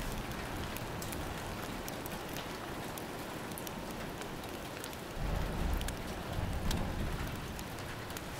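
Steady rain with scattered sharp drops. A couple of low rumbles come about five to seven seconds in.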